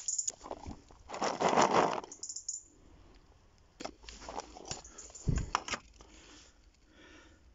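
Dry leaf litter rustling and crunching as hands rake through it picking up chestnuts, loudest about a second in. Later come scattered clicks and knocks, with one dull thump about five seconds in.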